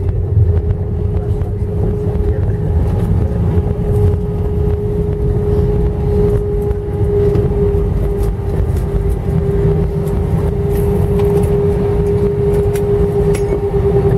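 Cabin noise of an Airbus A319 rolling out on the runway after touchdown: a steady low rumble from the wheels and airframe, with the engines running and a steady whine held throughout.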